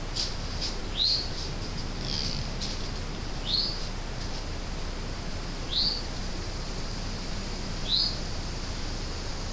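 A short, high, upward-sweeping call repeated four times, about two seconds apart, with a few faint clicks and chirps over steady hiss.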